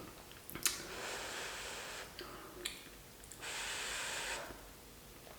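A person breathing out hard twice in long hissing breaths, with a few small clicks in between, reacting to the burn of very spicy food.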